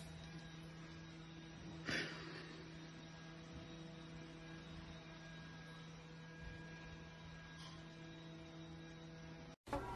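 Quiet room tone with a faint steady hum, broken once by a brief soft sound about two seconds in. Music cuts in just before the end.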